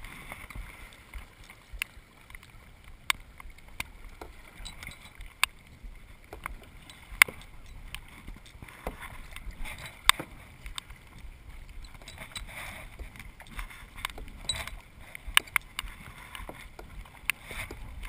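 Kayak paddling: repeated soft swishes of the paddle through the water, with scattered sharp knocks and clicks.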